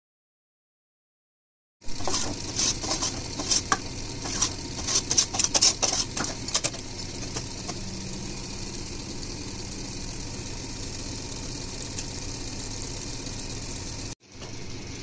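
Silent for the first couple of seconds, then a pot of chicken gravy simmering on a gas stove: a run of crackling pops and ticks over a steady hiss, the pops thinning out after a few seconds to leave mostly the hiss.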